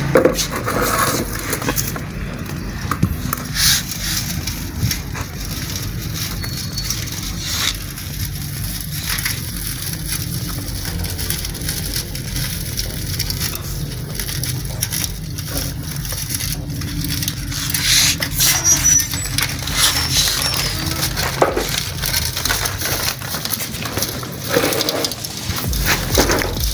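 Dry wood-wool cooler-pad fibres rustling and crackling in irregular bursts as hands spread and pat them over a wire mesh, over a steady low hum.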